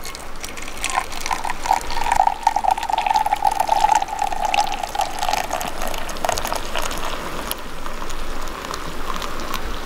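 Hot coffee pouring in a thin steady stream from a stainless steel brewer's spout into a stainless steel cup, trickling and splashing, with a ringing note from the filling cup through the first half.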